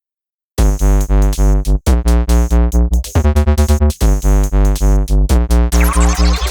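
Electronic background music: synthesizer over a steady, pulsing drum-machine beat with heavy bass, starting about half a second in, with a rising sweep near the end.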